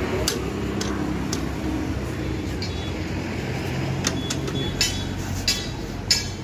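Sharp metal clinks of a T-handle socket wrench working the mounting bolts of a Honda Activa 6G scooter's exhaust silencer, several in the second half, over a steady low rumble.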